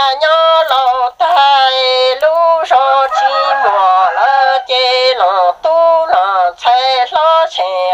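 Hmong kwv txhiaj, a sad sung poem: a high voice singing long, wavering, drawn-out notes in phrases broken by brief pauses.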